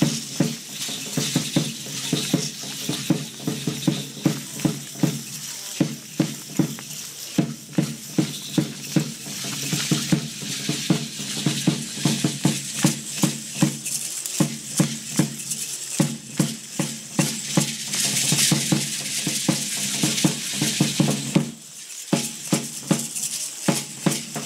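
Matachines dance music: a large drum beaten in a steady beat, with many hand-held maracas shaken by the dancers in a constant rattle over it. The sound drops out briefly near the end.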